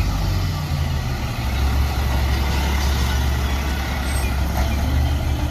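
Rear-loading garbage truck's engine running as the truck drives past, a steady low drone.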